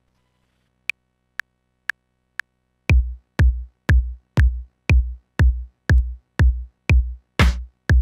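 1010music Blackbox sampler playing a deep house drum kit preset: four short metronome-style ticks at about two a second, the first one higher, count in a four-on-the-floor kick drum at the same tempo. A noisy snare or clap hit lands on one of the beats near the end.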